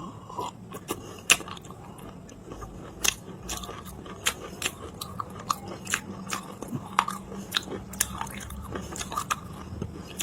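Edible clay being bitten and chewed close to the microphone: a run of sharp, dry crunches, a few at first and then about two a second.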